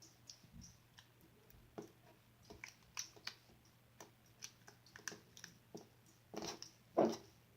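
Glossy slime being squeezed and pressed by hand, giving irregular small clicks and pops, a few louder ones near the end.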